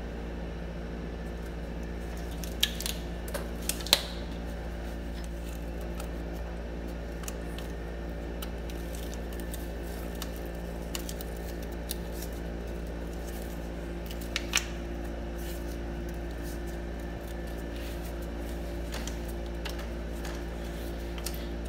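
Hand work on a car's serpentine belt and its tensioner with a half-inch ratchet: a few sharp clicks and taps, a cluster about three to four seconds in and a close pair near fifteen seconds, over a steady low hum.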